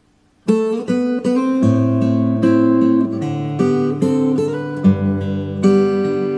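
Acoustic guitar playing the instrumental intro of a song, chords strummed and picked, starting about half a second in.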